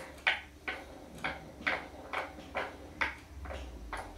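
Light, evenly spaced clicks, about two a second, like ticking.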